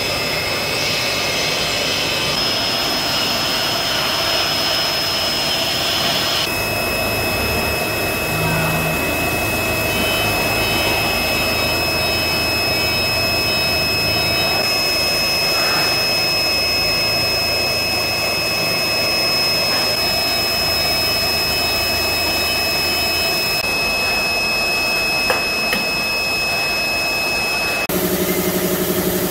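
A CA-6090 CNC router running: a steady high-pitched whine over a hiss, with a second, lower whine joining about six seconds in. Low motor hums switch on and off in steps. Near the end the sound changes to a cluster of steady lower hums.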